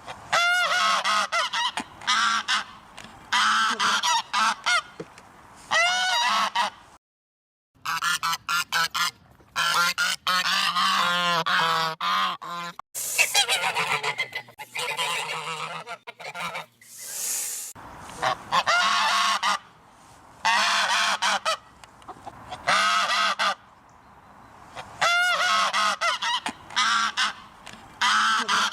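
Geese honking: loud, repeated calls in quick runs with short pauses between them, and a brief complete silence about seven seconds in.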